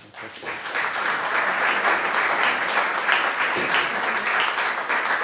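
Audience applauding, the clapping building up over the first second and then holding steady.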